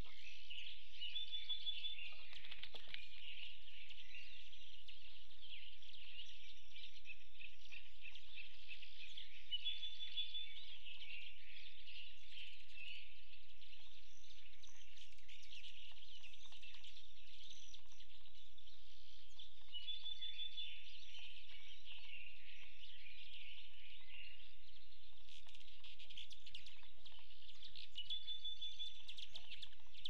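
Many wild birds singing and calling together, overlapping chirps and songs, with one short trilled phrase repeating about every ten seconds. A few sharp clicks or taps near the end.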